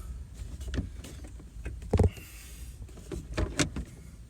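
Scattered plastic clicks and knocks as a third brake light assembly is handled and pushed against its mounting clips, which are not catching. The loudest knock comes about two seconds in, with a short hiss just after it and a quick run of knocks near the end.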